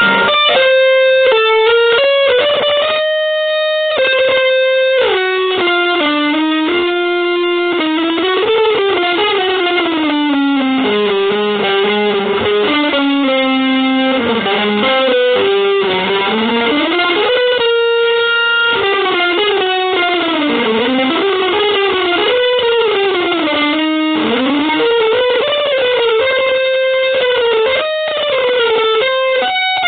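Distorted electric guitar playing a single-note melodic line through effects: fast runs that climb and fall, broken by a few held notes.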